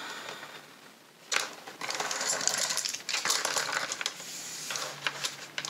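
Plastic pens and markers clattering against each other and the tabletop as a handful is gathered up, with a sharp click about a second in followed by a few seconds of continuous rattling.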